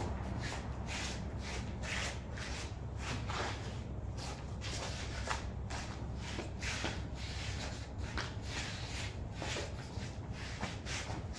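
Sneakers shuffling and scuffing on tiled paving in quick, irregular steps, over a steady low hum.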